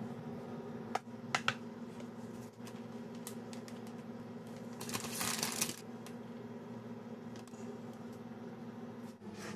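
Kitchen handling sounds over a steady low hum: a few light clicks about a second in, then a brief louder rustle around the middle, as food is handled on a metal baking tray.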